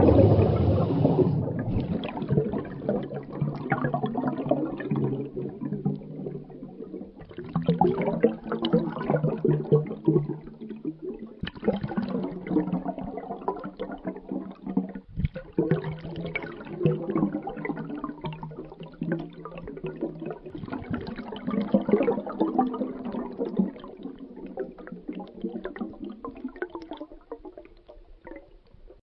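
Underwater bubbles streaming and bubbling, in surges that swell and ease every few seconds; loudest at the start and fading out near the end.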